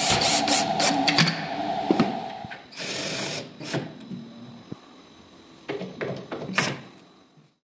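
Cordless drill-driver driving screws into laminated chipboard. It runs with a steady whir and rapid clicking for the first two and a half seconds or so, then in two short bursts, one about three seconds in and one near the end.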